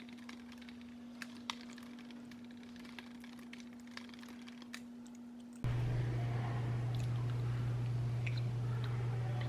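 Scattered small clicks and taps over a steady hum. A little over halfway through, the sound cuts abruptly to a louder, deeper steady hum with more small clicks.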